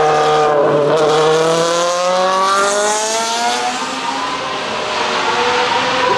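Porsche 935 race car's turbocharged flat-six accelerating hard, its engine note climbing steadily, then dropping with an upshift about four seconds in and rising again.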